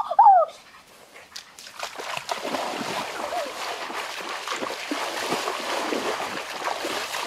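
Water splashing steadily as a person runs and wades through a shallow, muddy stream, starting about two seconds in. Right at the start come a few short, loud, high cries that rise and fall in pitch.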